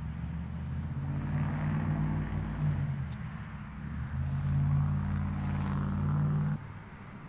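Motor vehicle engine running with a steady low hum and some road noise, swelling twice and dropping off suddenly about six and a half seconds in.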